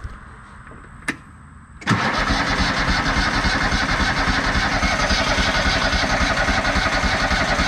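A rebuilt Kohler Command CH23 23 hp V-twin on a Cub Cadet mower starting for the first time after the rebuild. A click comes about a second in, then the engine catches almost at once, about two seconds in, and runs steadily at full throttle with a little choke.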